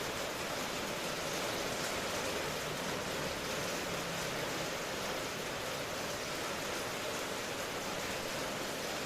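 Steady rain falling, a dense even hiss with no thunder.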